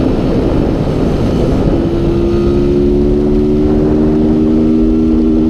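Honda Fan 160 motorcycle's single-cylinder engine running under way, with heavy wind rush on the microphone. About two seconds in its note settles into a steady pitch that climbs slowly as the bike accelerates.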